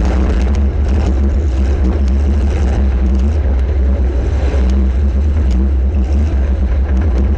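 Compact demolition derby car's engine running hard, heard as a heavy, steady low rumble from a camera mounted on the car, with scattered sharp knocks and rattles.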